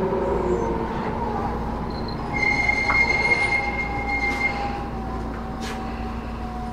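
Tobu 10030 series electric train heard from inside a carriage while running: a steady rumble with the whine of its chopper control. A high steady whine joins in for about two seconds in the middle.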